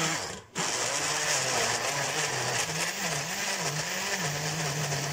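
Moulinex countertop blender running, blending bananas and eggs into a smooth mixture. The motor cuts out briefly about half a second in, as if pulsed, then runs steadily, its note wavering a little past the middle before holding even.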